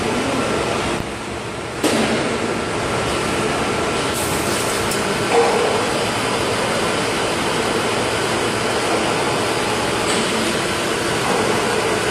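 Injection moulding machine running a cycle on a six-cavity PET preform mould: a steady machine noise, with a sudden rise about two seconds in as the mould closes and a brief louder noise a few seconds later.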